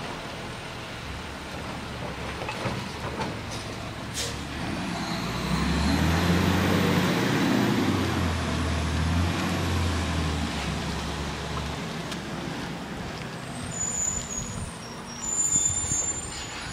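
Diesel garbage truck running as it drives down the street, its engine rumble building to a louder, deeper drone about a third of the way in and easing off again. Several short high-pitched squeals come near the end.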